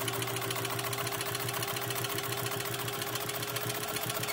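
Singer 15 sewing machine with a potted motor driving it directly through a worm gear, running steadily while stitching through leather. A steady motor whine sounds under a rapid, even clatter of needle strokes.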